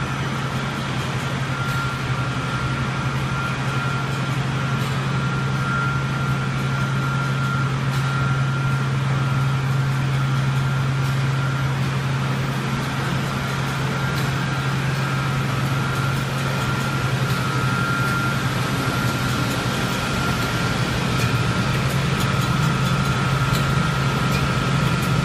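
Sawdust rotary drum dryer line running: a steady mechanical hum from its drive motors, drum and belt conveyor, with a thin steady whine above it.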